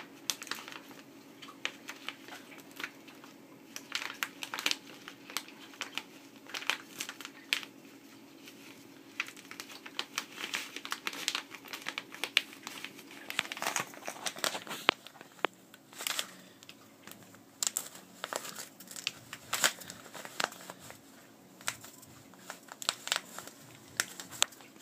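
Plastic bag crinkling as it is squeezed and shaken to pour fine mixed-bed deionization resin beads into a refillable DI filter cartridge, with many irregular crackles. The resin is slow to come out of the bag.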